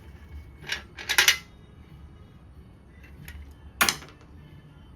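Metal engine parts clinking and clattering as the oil pan comes off a blown engine whose piston has broken up inside it. There are a few sharp clinks, with a short cluster about a second in and the loudest clink near the end.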